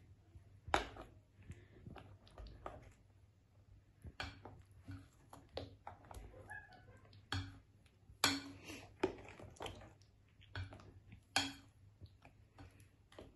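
A spoon stirring thick cassava cake batter in a glass mixing bowl, knocking against the glass with faint, irregular clinks every second or so.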